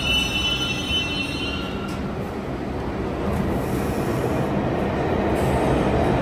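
New York City subway train moving through the station. A high wheel squeal fades out in the first second, then the rumble of the wheels grows louder over the last few seconds.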